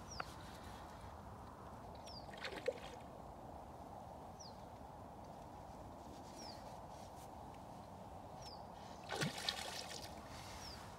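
Steady trickle of flowing river water, with a bird's short, high, falling whistle repeated about every two seconds. There are brief louder knocks about two and a half seconds in and again near the end.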